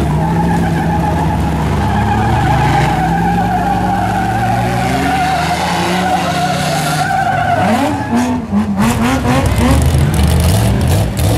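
A mud truck's engine running at high, steady revs under heavy throttle for about seven seconds. Then a different truck's engine revs up and down unevenly as it drives through mud, with a few sharp knocks.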